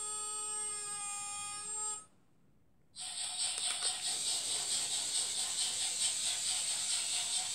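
Model railway locomotive sounds: a steady horn-like tone that shifts pitch slightly about a second in and stops after about two seconds. After a second of near silence comes a continuous hissing, rattling noise with a fast flutter.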